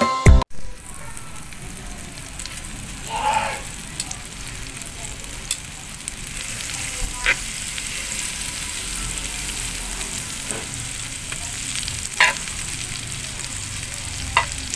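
Food sizzling as it fries in a pan, with a few light clicks. The sizzle grows louder about six seconds in.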